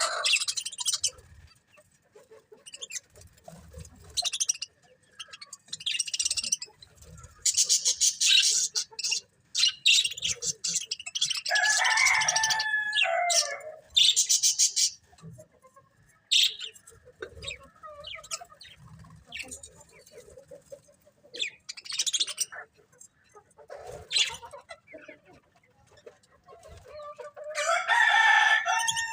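Budgerigars chirping and chattering in irregular bursts of high, rapid calls. Two louder, longer calls fall in pitch, one about halfway through and one near the end.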